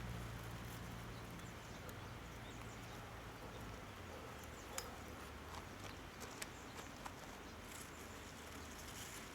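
Faint rustling of cucumber vines and leaves being handled, with a few sharp clicks about halfway through. A low hum fades out in the first few seconds.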